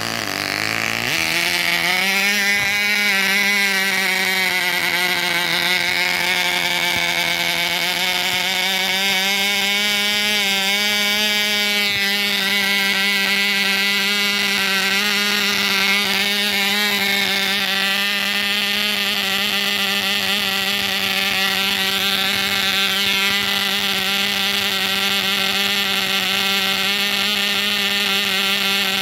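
Testors 8000 model glow engine running on its first start, its pitch climbing over the first two seconds and then holding a steady high buzz that wavers slightly in speed.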